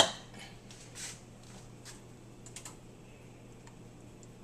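A single sharp click at the start, then a few light scattered clicks and ticks from handling in the kitchen, over a low steady hum.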